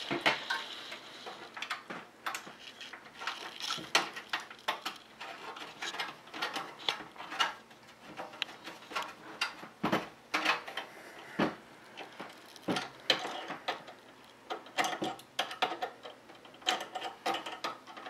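Screwdriver tightening the small screw that fixes a graphics card's metal bracket to a PC case's expansion slot: a run of irregular small metallic clicks and scrapes, turn after turn.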